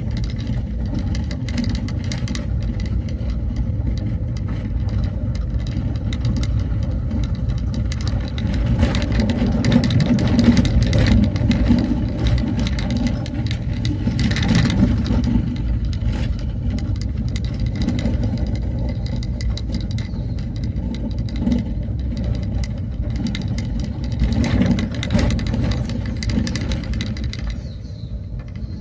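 Motor vehicle driving, its engine a steady low rumble with frequent rattles and knocks from the body.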